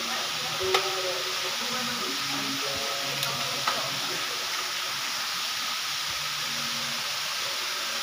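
Waterfall: a steady, even rush of falling water, with a few sharp clicks about a second in and again near the middle.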